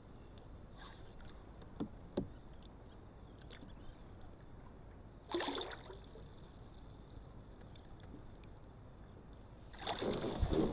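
A hooked zander splashing at the surface while being played on a rod: a brief swirl about five seconds in, then a longer, louder thrashing splash near the end. Two small knocks come about two seconds in.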